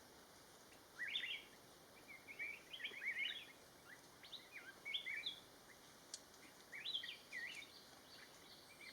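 Streak-eared bulbul calling: four short bursts of quick, twisting chirpy notes a second or two apart, over faint background hiss.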